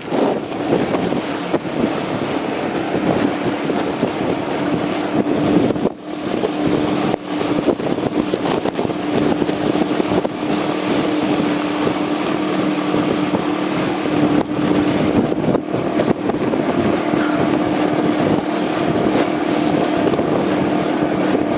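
Small boat's motor running steadily under way at an even pitch, with wind buffeting the microphone.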